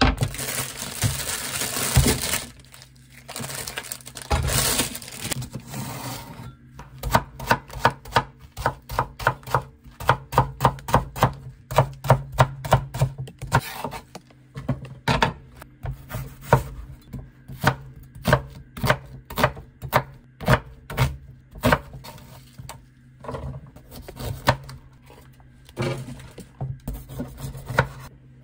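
Knife chopping on a cutting board: a long run of sharp, even strokes at about three a second, pausing briefly now and then. A short rushing noise comes before the chopping starts.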